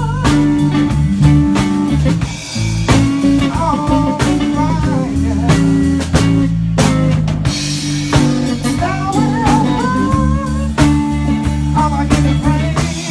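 Live band playing a blues number: a lead electric guitar line with bent, wavering notes over bass and drum kit.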